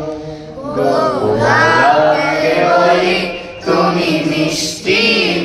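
A man singing a Bengali song in praise of his mother into a handheld microphone, with a group of boys singing along. The phrases break off briefly a few times.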